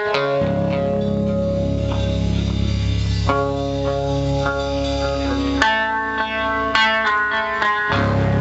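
Instrumental music on guitar: a quick run of picked notes over a low bass line. The bass drops out for about two seconds late on and comes back just before the end.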